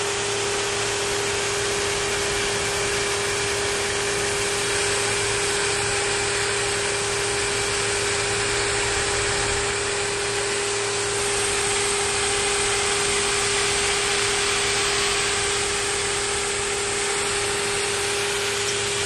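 Pressure washer running steadily: the hiss of its water jet spraying over a constant motor whine.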